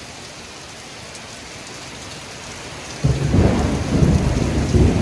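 Heavy rain hissing steadily in a thunderstorm. About three seconds in, thunder breaks in suddenly, loud and deep, and keeps rolling.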